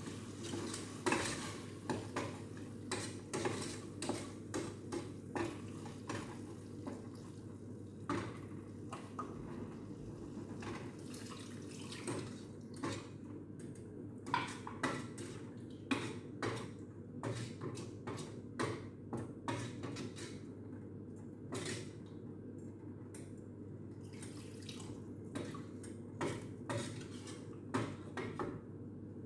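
Wooden spoon stirring sauce in a stainless steel pot, knocking against the pot in many irregular taps over a steady low hum.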